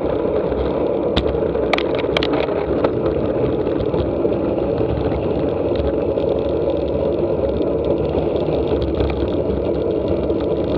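Steady wind rumble on the bike-mounted camera's microphone from riding a road bike, with a few sharp clicks about one to two seconds in.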